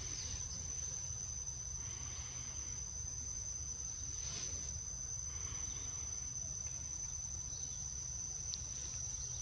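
Steady high-pitched buzzing of an insect chorus, such as crickets or cicadas, over a low rumble.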